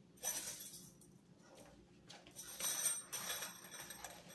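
A small nylon drawstring stuff sack from a camping tent being handled and opened at its cord lock: two bursts of fabric rustling with a light jingle, the second about two seconds in.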